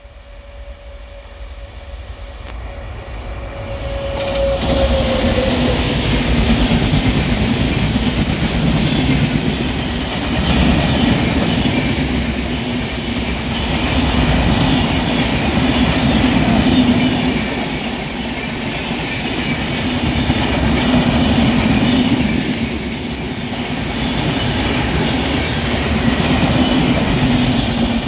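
Indian Railways express train passing at speed: the locomotive's horn holds one steady note that drops slightly in pitch about five seconds in as the engine goes by. Then the coaches rush past with loud wheel-on-rail noise that swells and eases in waves.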